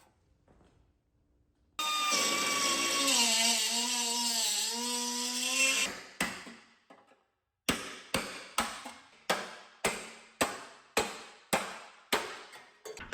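A power tool's motor runs for about four seconds, dipping slightly in pitch, then winds down. About a dozen sharp knocks follow at roughly two a second, each ringing briefly.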